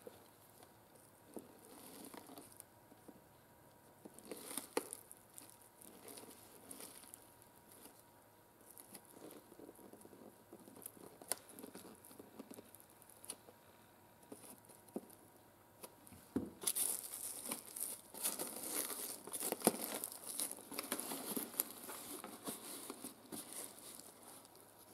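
Flat-bladed screwdriver prying up the crimped metal tabs on a Yamaha YL1's steel seat pan: faint, scattered scraping and clicking of metal on metal, with rustling and crinkling from the old seat cover as it loosens. The work gets busier about two-thirds of the way through.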